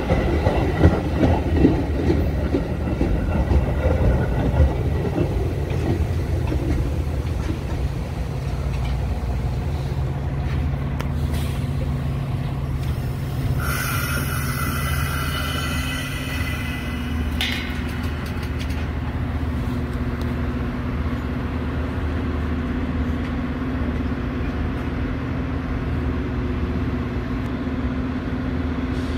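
Metra bilevel commuter train rolling into the station with rumbling wheel clatter for the first several seconds, then standing with a steady low hum. About midway a high-pitched tone sounds for roughly four seconds.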